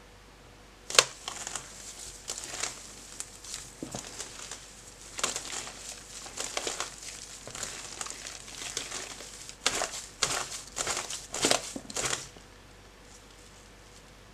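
Bare hands squeezing and squishing mashed potato soaked in a dark sauce: a run of wet squelches and crackles, the sharpest about a second in, stopping a little after twelve seconds in.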